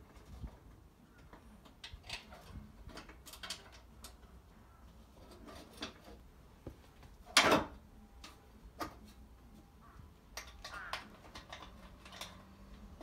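Scattered light clicks and taps of a car's front fender panel being handled and seated against the body, with one much louder knock a little past the middle.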